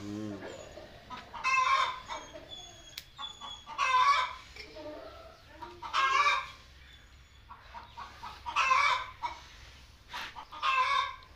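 Chickens calling repeatedly, one loud squawking call about every two seconds.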